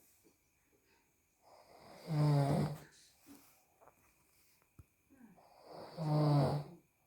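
A man snoring in his sleep: two long, loud snores about four seconds apart, each a low rattling drone lasting over a second, with quiet breathing between them.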